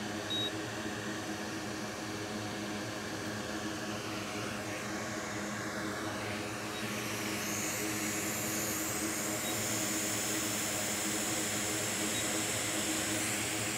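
Steady whirring and air hiss of an electric blower on a repair bench, over a low even hum. The hiss grows somewhat louder about halfway through.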